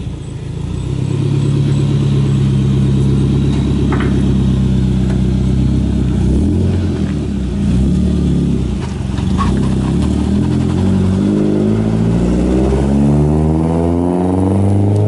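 Nissan 240SX engine running under load as the car is driven. The pitch holds steady for several seconds, drops once around the middle, then climbs steadily near the end as the car accelerates.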